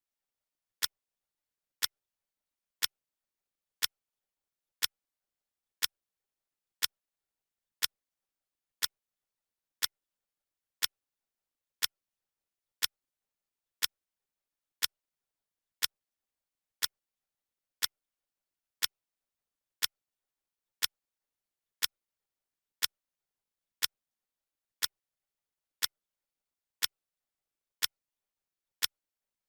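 Clock ticking sound effect: a sharp, dry tick once a second, evenly spaced and the same each time, marking off the seconds of a countdown timer.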